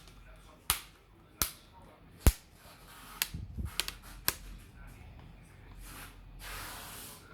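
A run of sharp plastic clicks and light knocks from a tablet being handled and pressed together during reassembly, the loudest click about two seconds in and a quick patter of small knocks after it. A brief soft hiss comes near the end.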